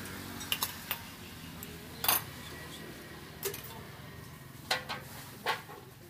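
Metal ladles and utensils clinking and knocking against steel pots and ceramic bowls while noodle-soup bowls are dished up: about seven separate sharp clinks, the loudest about two seconds in, over a steady low hum.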